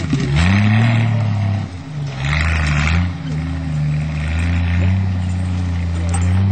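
Engine of an open-topped off-road 4x4 working hard up a steep dirt climb. Its pitch dips just after the start, then rises and holds under load, with several short bursts of hiss as the tyres throw dirt.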